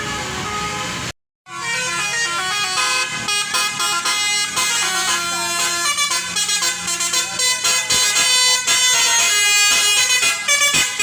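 Tour bus's Basuri telolet horn playing a tune of stepped multi-tone horn notes, starting after a brief silence about a second and a half in.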